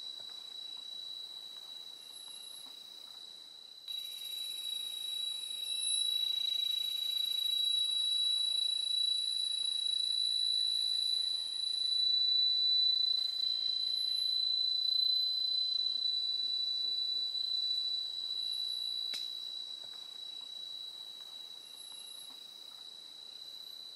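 Forest insects calling: a steady, unbroken high-pitched ring, joined by a second, even higher chorus that swells about four seconds in and fades out about twelve seconds in, with short high chirps repeating.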